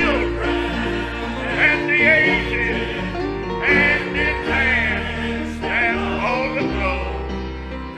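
Gospel song sung with vibrato over instrumental accompaniment with a steady bass line.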